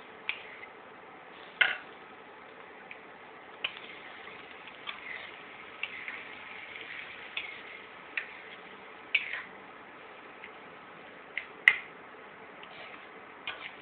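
A spatula knocking and scraping against a metal wok while a thick mash is stir-fried, giving irregular sharp clicks, a couple of them much louder than the rest.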